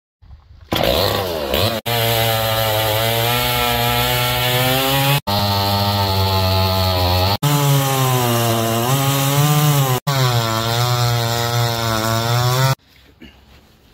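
Chinese-made two-stroke chainsaw running at high revs, its pitch sagging and recovering. The sound comes in several stretches separated by abrupt breaks and stops sharply near the end.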